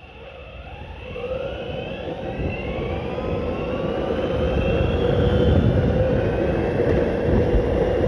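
Boosted Mini X electric skateboard accelerating. The whine of its belt-driven electric motor rises in pitch over the first few seconds, over a low rumble that grows steadily louder.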